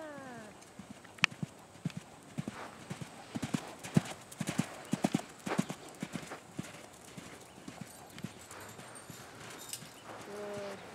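Yearling warmblood filly's hooves striking the sand arena footing as she canters loose: a run of quick, uneven hoofbeats with a few sharp knocks, strongest in the first six seconds, then fainter.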